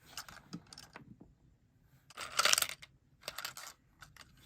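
Mini toy gumball machine being cranked: clicks from the turning knob and gumballs clattering out, loudest in two short bursts about two and three seconds in.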